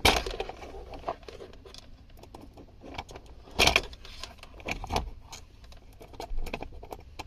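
Light clicks and small metallic rattles of multimeter test-lead probes and wires being handled and pressed against the terminals of a car's 12-volt power socket. The loudest clicks come at the start and about three and a half seconds in.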